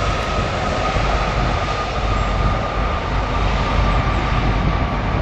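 Jet airliner's engines: a steady loud rush with a deep rumble and a high whine that slowly drops in pitch as the aircraft passes.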